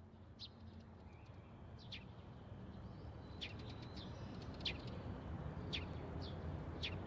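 Faint low electrical hum that slowly swells, with short high bird chirps about once a second.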